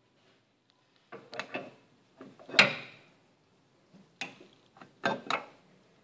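Sharp knocks and clicks of tools and brake parts being handled at the workbench: a short cluster about a second in, the loudest knock at about two and a half seconds, and a few more near the end, with quiet between.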